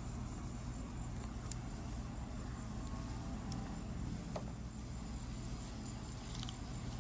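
Steady low rumbling background noise with a few faint, brief clicks scattered through it.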